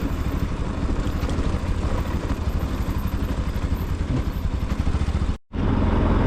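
Motorcycle engine running steadily under way, a low rapid rumble with road and wind noise over it; the sound cuts out for a moment about five seconds in and picks up again.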